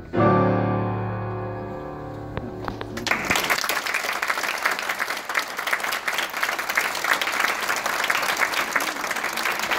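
A final chord played together on three pianos, two grands and an upright, rings out and fades away over about three seconds. Then the audience breaks into steady applause.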